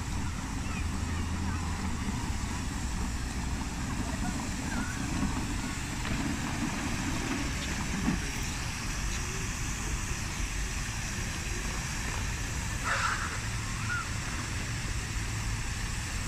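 Steady outdoor background noise: a low rumble with a hiss above it, and a brief faint higher sound about thirteen seconds in.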